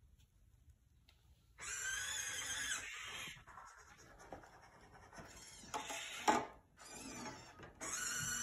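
A desktop robot arm's joint motors whining in three spells as the arm moves, the pitch wavering as the joints speed up and slow down, with a short click a little past the middle.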